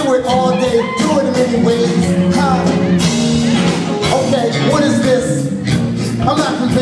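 Live music played loud through a concert PA, a beat with a voice singing or rapping over it.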